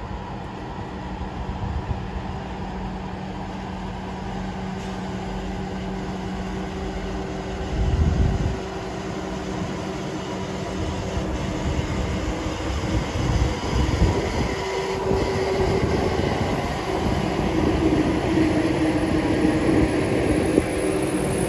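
SNCF TGV high-speed trainset rolling slowly past, its traction equipment giving a steady hum over the rumble of the wheels, with knocks as the wheels cross rail joints. A loud low thud comes about eight seconds in.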